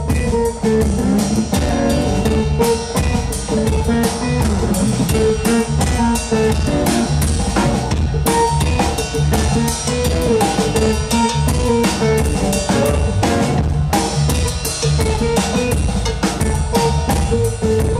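Rockabilly trio playing an instrumental passage with no vocals: a standing drum kit keeps a busy, even beat on snare and bass drum under upright bass and hollow-body electric guitar.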